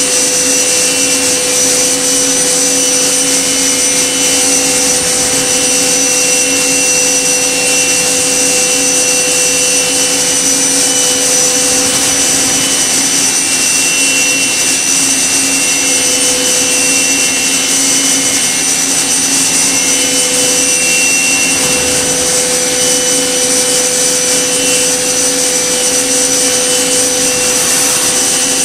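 Okuma MB-5000HII horizontal machining center with its spindle spinning at high speed and the tool cutting a small workpiece: a steady high whine with several pitches over a constant rushing hiss.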